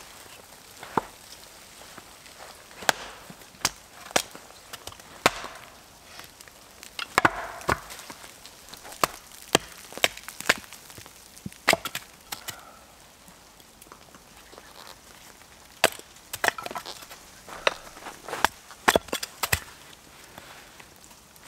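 Knife being batoned through a stick of firewood on a chopping stump to split kindling: a run of irregularly spaced sharp wooden knocks, some followed by the crack and splinter of the wood giving way.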